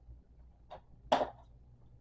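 Two brief knocks of a small hard object being handled, a faint one and then a sharper one just after a second in.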